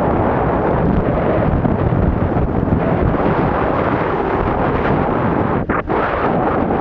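Wind rushing over the microphone of a camera carried by a moving snowboarder, a steady loud rumble that dips briefly near the end.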